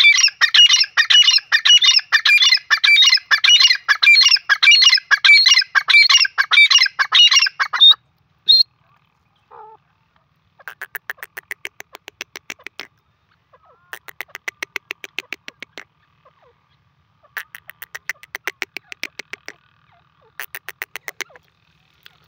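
Grey francolin calling: a loud, rapidly repeated series of harsh phrases for about eight seconds. After a short pause come four shorter, much quieter runs of fast clicking notes.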